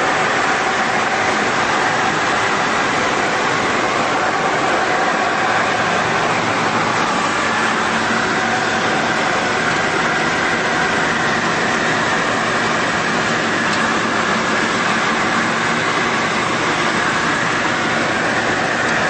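Steady engine and airflow noise inside the cabin of a Tecnam Sierra light aircraft, from its Rotax 912 four-cylinder engine and propeller. It is loud and even throughout.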